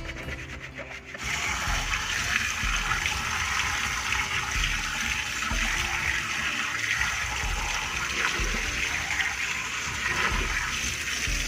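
A brush scrubbing briefly, then from about a second in, water running steadily from a tap.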